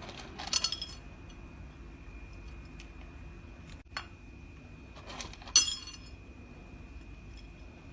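Two short, ringing clinks of hard objects, about five seconds apart, with a faint click between them and a thin steady whine underneath.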